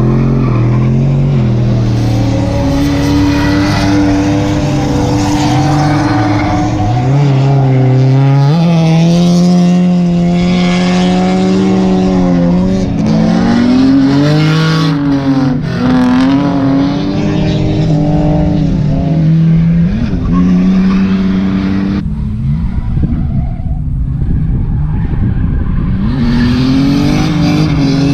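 Drift cars' engines revving hard, the pitch climbing and dropping again and again as the throttle is worked, with tyre squeal as they slide sideways through the corners. About three-quarters through the sound changes abruptly and the highs thin out for a few seconds before the revving picks up again.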